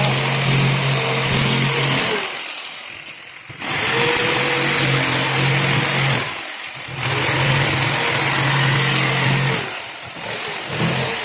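Electric jigsaw cutting MDF sheet: a steady motor hum with a rasping saw hiss. It runs in stretches of two to three seconds and stops briefly between them, about three times, with a new cut starting near the end.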